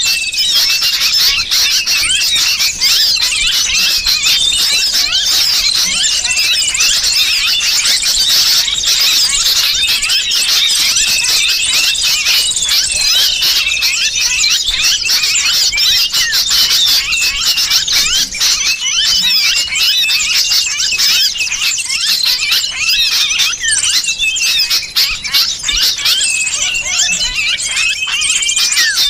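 Dense, continuous chorus of rapid high chirps and squeals from small birds: a bird-lure recording mixing the distress calls of a trapped sooty-headed bulbul with the agitated calls of many small birds.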